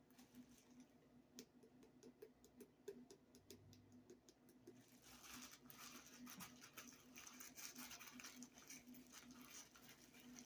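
Faint light clicks and rustling, thickening into a denser patter over the second half: paprika being shaken out of a spice container.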